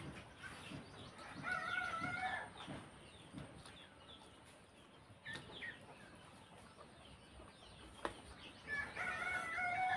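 A rooster crowing twice, once about a second and a half in and again near the end, each crow lasting about a second. Soft eating sounds lie underneath: chewing and a hand mixing rice and curry.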